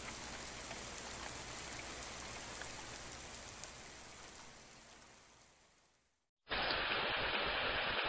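Rain sound effect: an even hiss of falling rain that fades out over the first four seconds or so. After a short silence, a different, louder rain recording begins about six and a half seconds in.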